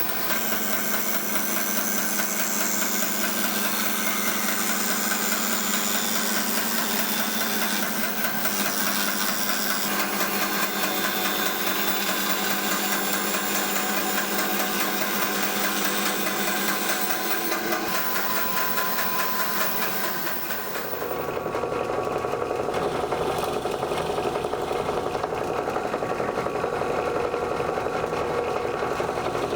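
Bandsaw running and cutting a curve in a wooden board, a steady hum under a high hiss. About two-thirds of the way through a different power tool takes over, running steadily with a lower, less hissy sound.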